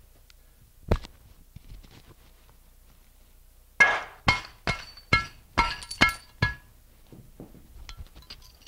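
A glass jar wrapped in a towel on a concrete block being smashed: seven sharp blows about half a second apart, each with a crunch and clink of breaking glass. A single thump comes about a second in, and faint tinkling of shards near the end.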